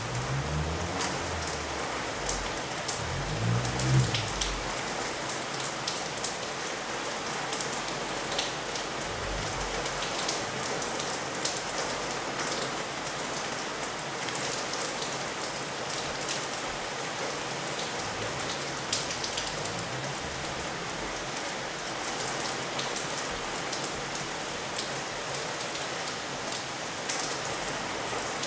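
Heavy rain pouring steadily, an even hiss dotted with many sharp drips and splashes. A brief low rumble rises and falls about four seconds in.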